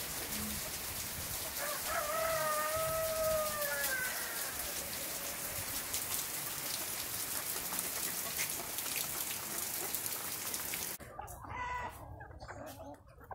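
Steady rain falling on trees and wet ground, with a rooster crowing once, one long call of about two and a half seconds, about two seconds in. The rain hiss cuts off suddenly near the end, followed by a few short chicken clucks.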